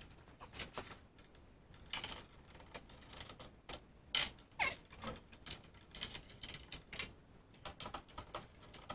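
Hand tool clicking and scraping against metal in irregular bursts as the window regulator's glass clamp screws are tightened through the access holes in a car door's inner panel.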